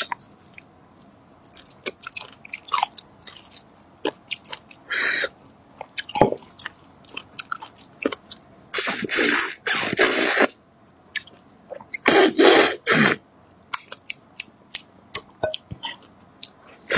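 Close-miked eating of roasted beef bone marrow: wet smacking chewing and sucking mouth sounds, in many short clicks with longer, louder stretches about nine and twelve seconds in.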